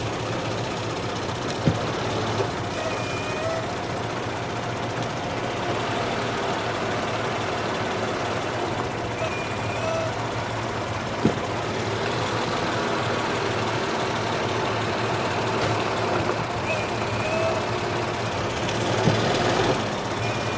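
Mercedes ML320 idling with its remanufactured 722.6 automatic transmission in gear, a steady low running sound with a few brief knocks. This is the noise the transmission makes when put in R or D after a drive, its cause not yet known.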